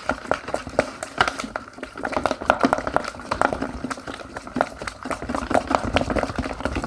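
Homemade slime being stirred as borax activator is mixed in, giving a rapid, irregular run of sticky clicks and small knocks as the mixture turns gloopy.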